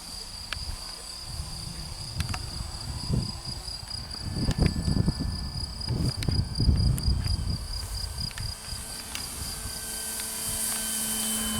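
Gusty wind buffeting the microphone in low rumbling surges, under an insect's steady high pulsing trill. Near the end a faint low hum comes in, the model plane's motor approaching.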